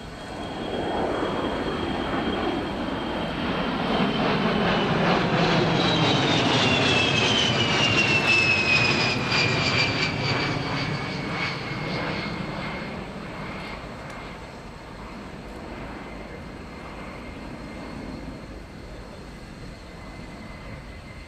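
A pair of Fairchild A-10C Thunderbolt II jets passing overhead, their twin TF34 turbofans giving a high whine that drops in pitch as they go by. The sound builds to its loudest about eight seconds in, then fades to a fainter distant hum.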